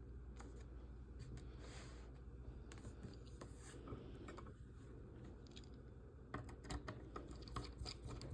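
Faint small clicks and ticks of tiny screws and metal model frame pieces being handled and fitted together by hand, with a closer run of clicks near the end, over a steady low hum.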